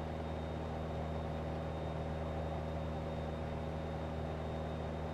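Piper Warrior's four-cylinder Lycoming O-320 engine and propeller in cruise, a steady, even drone heard from inside the cabin.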